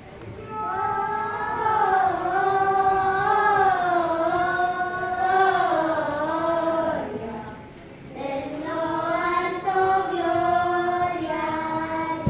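Children's voices singing a slow melody in unison, in two long phrases with a brief break about eight seconds in.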